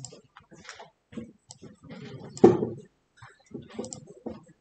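Indistinct, broken voices in a room with scattered clicks and knocks, and one louder thump about two and a half seconds in.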